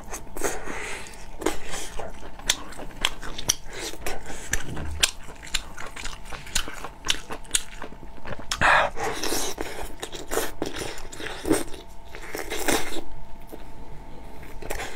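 Close-miked eating of braised bullfrog pieces: biting, tearing the meat from the small bones and chewing, with many short sharp clicks and a louder noisy burst about nine seconds in.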